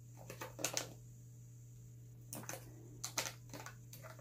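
A G Fuel powder tub's packaging being worked open by hand: a few clusters of small plastic clicks and crinkles, over a faint steady low hum.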